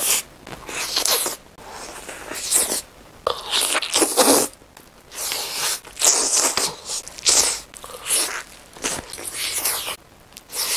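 Close-miked biting and chewing of a large stacked burger: a run of crunching, wet mouth sounds coming every second or so.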